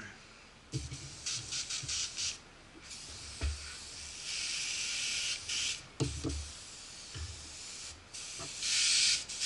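Airbrush with a 0.3 mm needle spraying black primer: hissing bursts of air as the trigger is pressed and released, several quick ones about a second in, a longer spray around the middle and another near the end. A few low thuds sound between the sprays.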